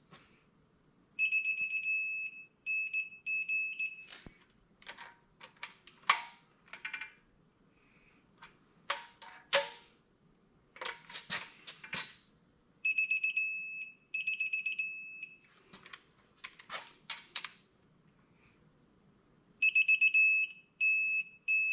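Digital torque wrench beeping as cylinder head bolts are tightened through a 90-degree angle step, three short high beeps at a time, three times over, signalling that the target has been reached. Sharp clicks and clinks of the wrench and socket on the bolts come between the sets of beeps.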